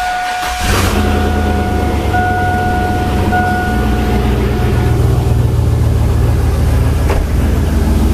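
Pickup truck engine catching about half a second in and then idling steadily, with the dashboard warning chime sounding on and off for the first few seconds before it stops. A single sharp tap near the end.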